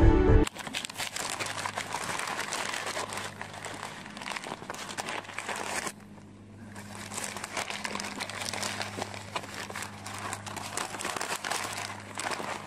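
Background music that cuts off half a second in, then close crinkling and scratching on a ground-level camera's microphone as rabbits crowd and nose at it, with a faint steady low hum underneath.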